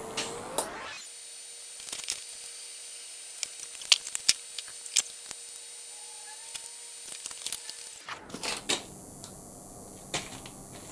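Gas-shielded wire-feed (MIG) welding arc crackling with a dense run of sharp pops as a seam is welded out on steel, starting about a second in and stopping about eight seconds in. A few knocks from handling follow.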